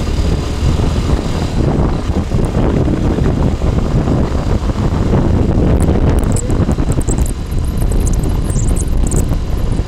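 Kawasaki Ninja 250R motorcycle's parallel-twin engine droning under light throttle while riding uphill on the highway, mixed with steady wind rush on the microphone.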